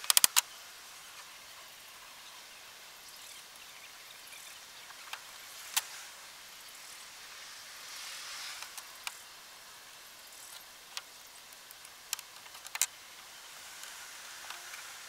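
Three or four quick hammer blows on a stack of wooden pallet blocks, then scattered light clicks and knocks as the blocks and bar clamps are handled.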